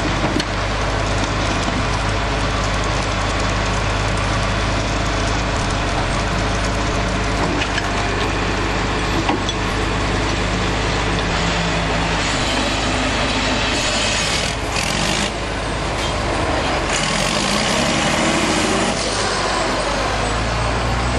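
Heavy diesel logging machinery running steadily, loud and noisy, with a steady low engine drone.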